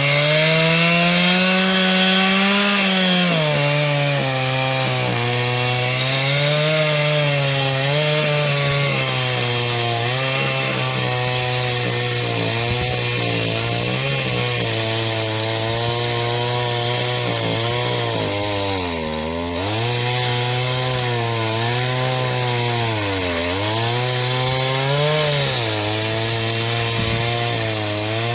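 Stihl MS 250 chainsaw's single-cylinder two-stroke engine running at high revs. Its pitch drops a little in the first few seconds, then wavers up and down, and dips sharply twice in the second half before recovering.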